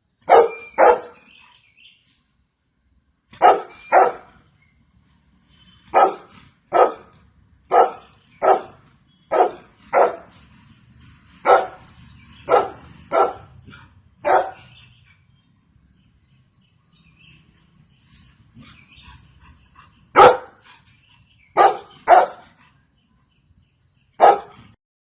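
Golden retriever barking: short, loud barks, many in quick pairs, repeated every second or two. Just past the middle there is a pause of several seconds before a few more barks.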